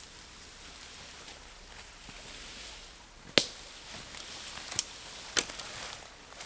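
Steady rush of river water, broken by three sharp cracks, the first the loudest, the next two about a second and a half and two seconds later.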